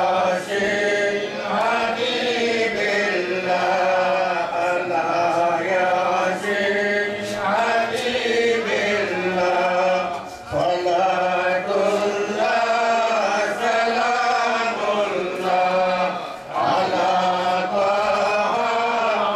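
A man chanting a religious text into a handheld microphone, in long held melodic phrases with brief pauses for breath, twice in the second half.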